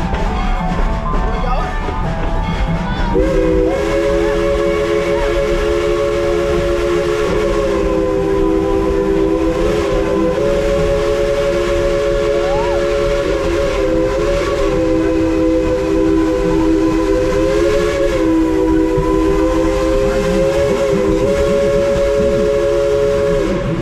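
A narrow-gauge steam locomotive's chime whistle sounding one long three-note chord, starting about three seconds in and held for about twenty seconds, its pitch wavering slightly now and then. Under it runs a low rumble and wind noise from the moving train.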